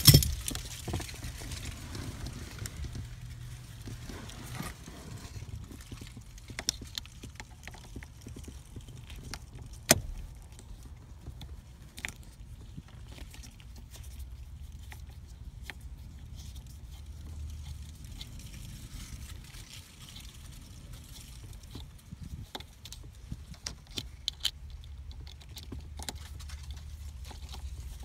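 Phillips screwdriver backing a small screw out of the ignition lock housing: scattered light metallic clicks and scrapes, with one sharper click about ten seconds in, over a low steady hum.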